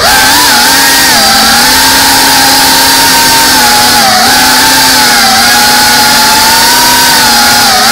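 GEPRC Cinelog 35 FPV drone's brushless motors and propellers whining at a fairly steady throttle, loud and close through the onboard camera's microphone. The pitch dips slightly about a second in and again around four seconds in.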